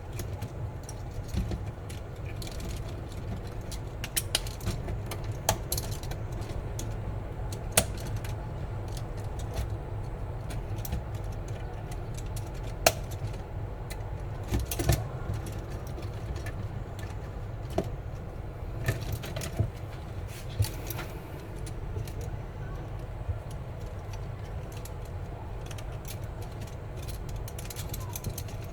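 Irregular light clicks and clacks of a 3D-printed wind-powered walking robot's plastic parts knocking as it moves, over a steady low wind rumble.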